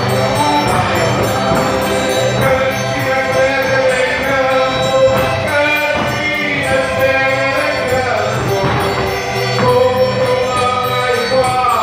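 Live Portuguese folk-dance music (rancho folclórico): a band with a bass drum and plucked stringed instruments plays a lively tune, with voices singing together over it.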